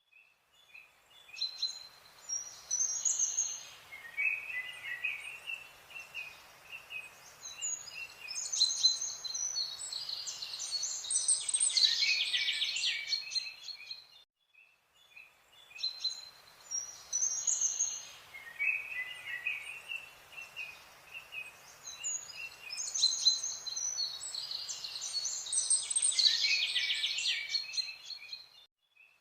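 Birds chirping and trilling, many short high calls. The same stretch of birdsong plays twice over, repeating identically about halfway through.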